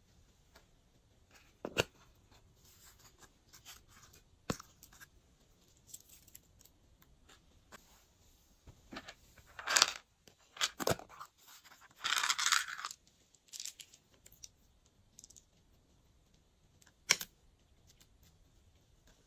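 Glossy slime being mixed and handled, making scattered sharp clicks and crackles, with a longer, denser crackling stretch about twelve seconds in.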